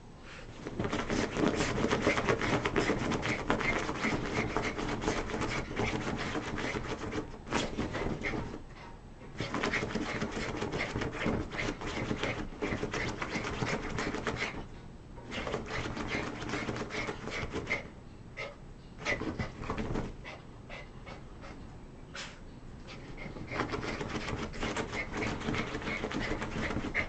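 A small street dog spinning in circles after its tail on a bed: its breathing and the scrabble of its paws on the bedding come in several bouts of a few seconds, with short quieter pauses between.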